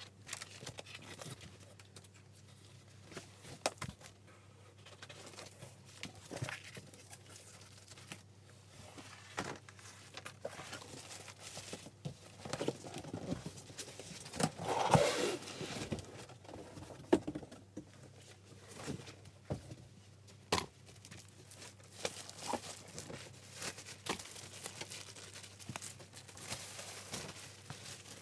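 Cardboard shipping carton being opened and unpacked by hand: tearing and crinkling with scattered knocks and clicks, and a louder tearing burst about halfway through.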